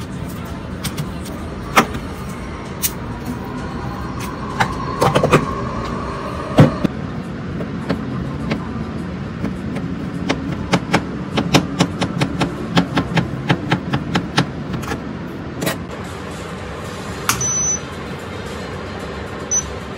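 Kitchen knife slicing a sausage on a plastic cutting board: a quick run of taps, about four a second, over a steady background noise. Near the end come two short high beeps from the induction cooktop's touch controls.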